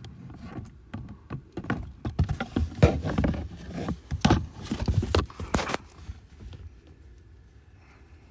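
Irregular knocks and clicks of plastic blower-motor parts being handled and pushed into place, busiest in the middle and dying down near the end.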